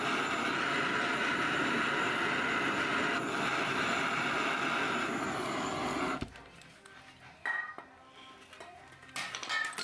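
Handheld cartridge gas torch burning with a steady hiss as it heats the brake-disc bolts on a motorcycle rear wheel, shut off suddenly about six seconds in. Then metal tools clink a few times.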